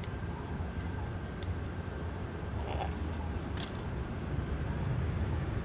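A few sharp, crisp clicks, the loudest at the start and about a second and a half in, as a yellow-headed parrot's beak bites and crunches into a piece of raw carrot, over a steady low background rumble.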